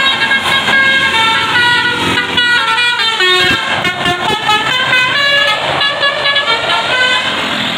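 Basuri multi-tone musical air horn on a tour bus playing a quick telolet tune, a run of stepped notes each held a fraction of a second.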